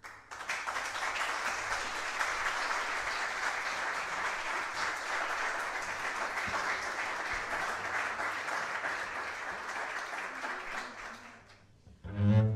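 Audience applauding for about eleven seconds, dying away near the end. Just before the end the quintet starts the next piece with a loud entry of bandoneón and bowed strings.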